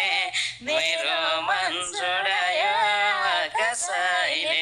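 A man and a woman singing a Nepali dohori folk song in long, wavering held notes, with short breaths between phrases.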